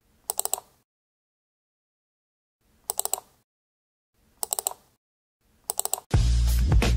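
Four short pitched click-like sound effects, each about half a second long, one for each folder opened in a file explorer, with silence between them. Loud music with a beat starts about a second before the end.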